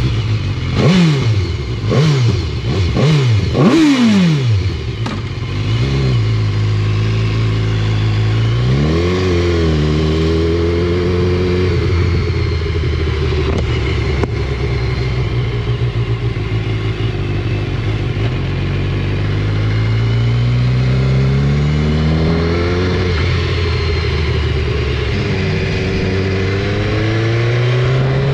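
Sport motorcycle engine blipped four times in quick succession at idle, then pulling away and accelerating, its pitch climbing and dropping back at each gear change.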